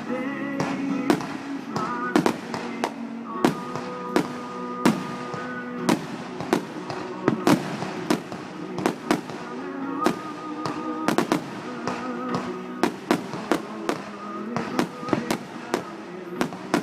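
Fireworks going off in a dense, irregular barrage of sharp bangs and crackles, often several a second, with music playing underneath.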